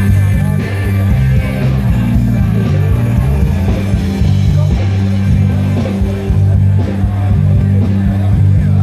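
Loud rock music with electric guitar, singing and a heavy bass line.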